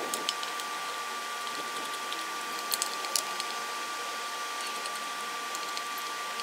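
A few light clicks and taps of a screwdriver working on the screws that hold the compressor motor in its plastic housing, mostly near the start and about three seconds in, over a steady hiss with a thin, steady high tone.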